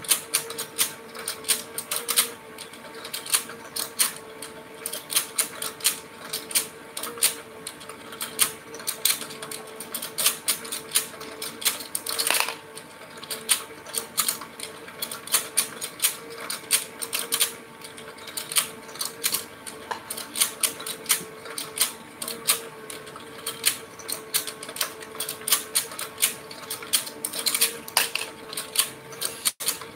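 Electric toy fishing game running: a rapid, irregular plastic clicking and rattling as the turntable rotates the plastic fish, over a steady hum.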